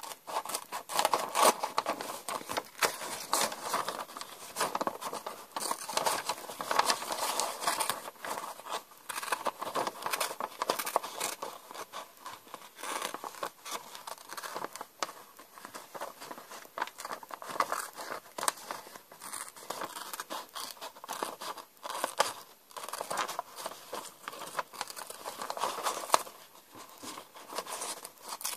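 Scissors snipping through a sheet of lined paper: many short cuts in quick succession all through, with the paper rustling and crinkling as it is handled.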